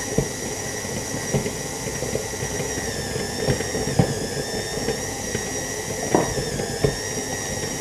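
KitchenAid Artisan stand mixer running on speed 3 with the dough hook, kneading bread dough to develop the gluten: a steady motor whine that dips slightly in pitch a couple of times, with a few scattered thumps.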